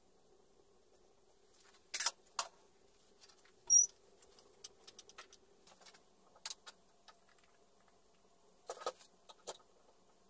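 Metal parts of a hand-operated espresso press clicking and knocking as they are handled and fitted together. Two sharp knocks come about two seconds in, a louder clink with a brief squeak just before four seconds, light ticks after that, and a cluster of knocks near nine seconds.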